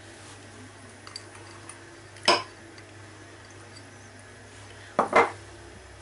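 Sharp clinks of china, a small bowl knocking against a ceramic pie dish while sweetcorn is scattered from it: one about two seconds in and two in quick succession near the end, over a low steady hum.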